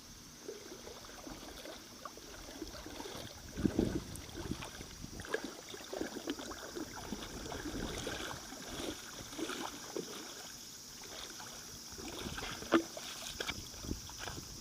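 Lake water sloshing and splashing irregularly, with louder splashes about four seconds in and again near the end.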